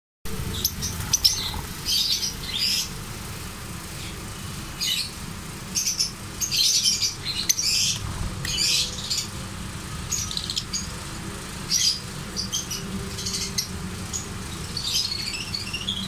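A cage of lovebirds chattering in short bursts of shrill, high chirps, over a steady low rumble.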